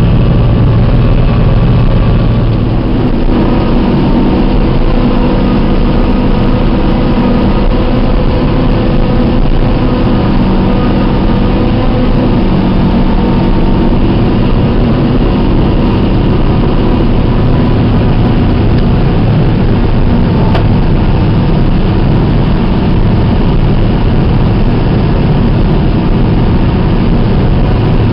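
John Deere six-row self-propelled forage harvester running steadily under load while chopping maize for silage, heard from inside the cab: a loud, constant engine and machinery hum.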